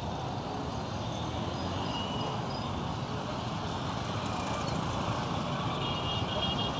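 Busy street traffic dominated by small motorcycle-taxi engines running and passing close by, with minibus taxis among them, in a steady, dense mix.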